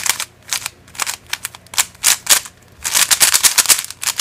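YJ Guanlong 3x3 speed cube being turned by hand, its plastic layers clicking with each turn. The turns come a few at a time at first, then fast and continuous from about three seconds in.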